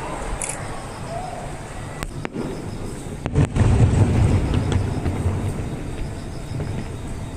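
Fireworks display: a deep rumbling boom about three and a half seconds in that fades over a second or two, over steady outdoor background noise.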